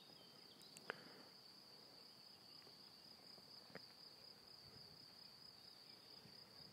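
Near silence with a faint, steady, high-pitched insect trill, and two soft clicks, about a second in and near four seconds.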